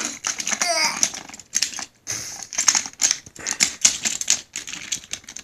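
Toy trains and track pieces clattering and clicking as they are handled, a rapid, irregular run of small knocks, with a brief high sound that falls in pitch about a second in.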